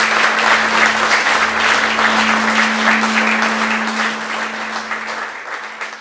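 Audience applauding, dense clapping that fades away over the last couple of seconds.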